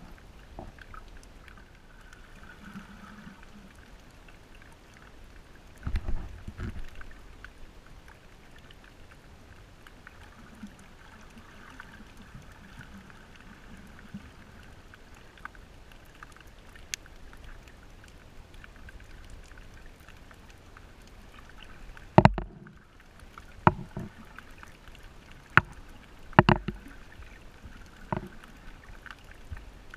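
Underwater water noise while snorkeling over a reef: a steady muffled hiss, with a low thump about six seconds in and several sharp knocks near the end.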